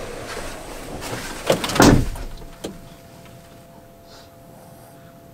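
Hyundai Starex camper van's door shut with a heavy thud about two seconds in, followed by a short click as it latches; after that a faint steady hum.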